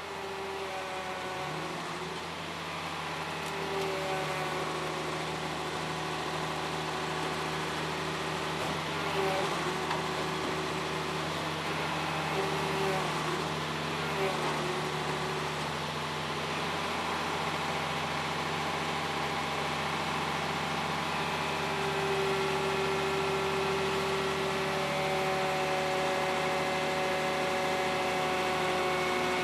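Cummins diesel engine and hydraulic pump of a portable car logger running steadily under load as its rams compress a car, with a steady whine whose pitch shifts and grows rougher partway through.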